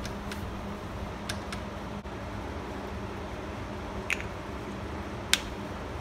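A few sharp clicks from hand tools being worked on the engine, the loudest near the end, over a steady low hum of shop noise.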